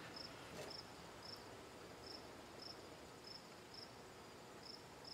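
Faint cricket chirping, a short chirp just under twice a second, over a low background hiss, with one faint click under a second in.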